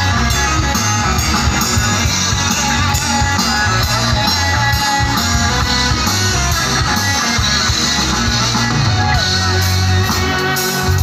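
Live band music played loud over a stage PA, led by guitars over a steady beat: an instrumental passage in a Baul folk song performance.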